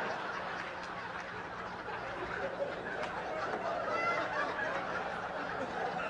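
Audience laughing, a steady mass of many overlapping voices.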